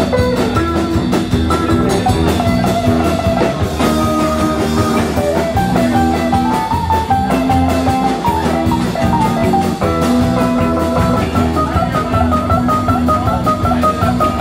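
Live rock band playing an instrumental break: a guitar plays a melody over strummed acoustic guitar, electric bass and drum kit, with a steady beat.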